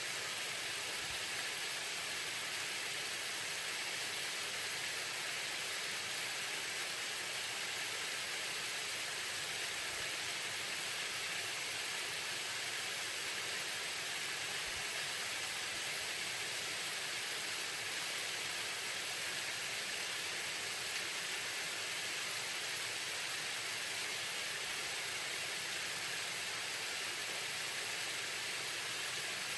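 A waterfall running: a steady, even rush of falling water, bright and hissy with little low rumble, unchanging throughout.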